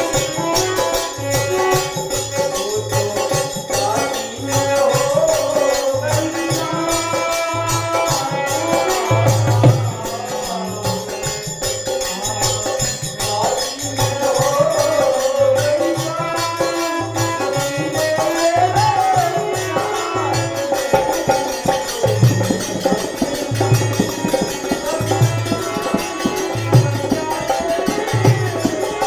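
Bhajan music: a low hand-drum beat, jingling hand percussion, and a melody line that slides up and down in pitch.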